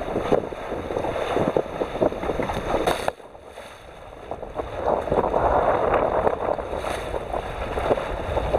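Wind buffeting the microphone over choppy water splashing around a small sailboat. The sound drops suddenly about three seconds in, then builds back up.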